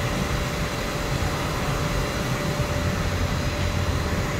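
Steady mechanical hum and hiss of a fan-like machine running, with a faint steady whine over it.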